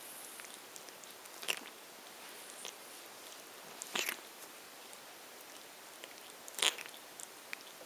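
Cat grooming itself close up: quiet wet licking and nibbling at its fur, with three sharper, louder nibbles a couple of seconds apart.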